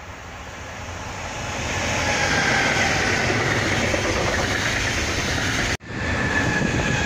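An electric-hauled freight train passing close by on the rails. It grows louder over the first two seconds into the steady running of wagons over the track, with a faint high whine that falls slightly in pitch. An abrupt cut about six seconds in gives way to another electric freight train running near.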